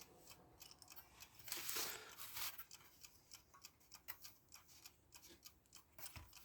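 Seven Star mechanical alarm clock movement ticking quickly and faintly as its balance wheel runs, with a brief rustle of handling about a second and a half in.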